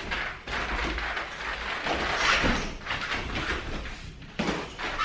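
Boxing gloves landing during light sparring: irregular padded thuds and slaps of gloved jabs and back fists striking gloves and guard.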